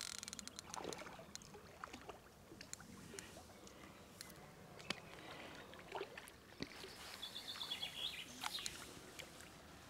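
Faint splashing and slapping of water as a hooked carp thrashes at the surface close to the bank and the landing net. About seven seconds in, a bird calls with a quick run of short high notes.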